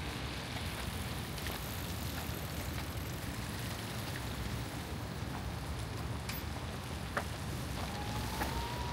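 City street ambience on a wet day: a steady wash of traffic noise on rain-wet roads, with light rain falling and a few faint clicks. A brief faint rising squeal comes near the end.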